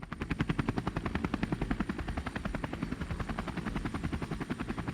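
Police helicopter's rotor chopping with a rapid, steady beat.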